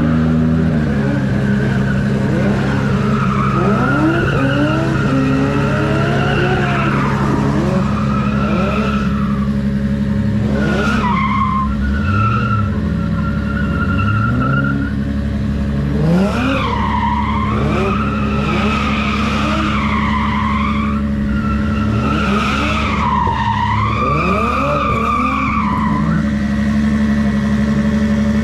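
Drift cars sliding: a wavering tyre squeal comes in several long stretches over repeated rising engine revs. Under it a car engine idles steadily close by.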